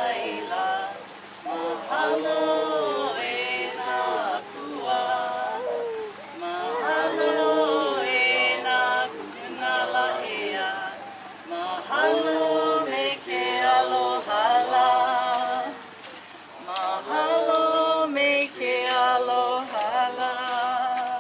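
Unaccompanied Hawaiian chant (oli): a voice intoning long, held phrases with wavering pitch, with short breaks between them.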